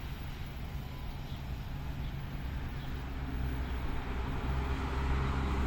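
NJ Transit train running through, a deep rumble that grows louder over the last two seconds, over the steady hiss of heavy rain.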